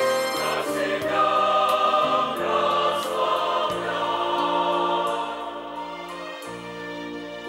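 Mixed church choir of men and women singing a Russian hymn. The sound grows quieter about two-thirds of the way through, as the choir's phrase ends.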